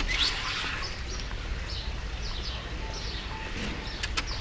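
Small birds chirping over and over in short, quick, falling chirps over a low steady hum. Near the end, the handle of a glass patio door clicks twice.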